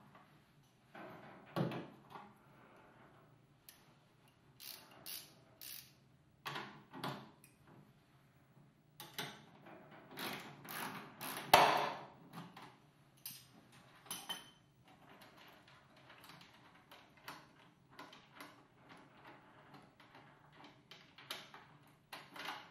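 Hands removing a Hall effect accelerator pedal assembly from its mount in a car's footwell: irregular metallic clicks, clinks and scrapes against the sheet metal, with one sharp knock, the loudest, about halfway through.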